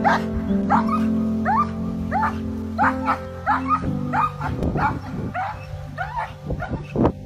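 A dog barking over and over in short, rising yelps, about two a second, over background music.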